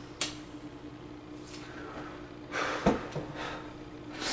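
A man breathing in and out in short hissy breaths while smoking a cigarette, with a short thump about three seconds in. A faint steady hum runs underneath.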